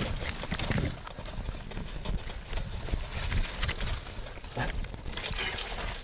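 Road bicycle rattling over a rough, overgrown trail, with irregular knocks and clatter over a steady rustling noise.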